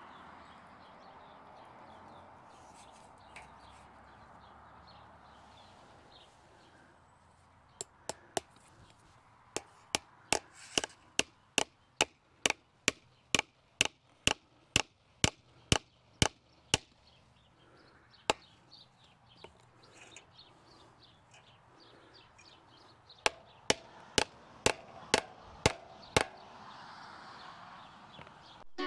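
Hammer driving fence staples into a wooden fence post: a long run of sharp strikes, about three a second, starting about a quarter of the way in, then after a pause a shorter run near the end.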